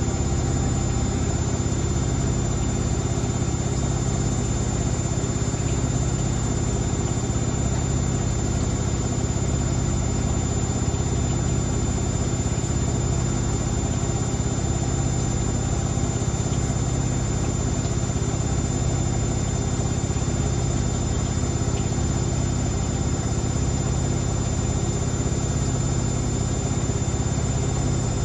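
Hotpoint WML540 Aquarius washing machine spinning steadily at speed with its door open: a loud, even drum-and-motor hum with a steady high whine above it.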